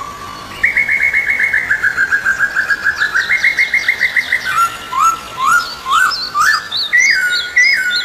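A songbird singing: fast trills of repeated chirps, about ten a second, then a string of separate upward-sweeping whistled notes.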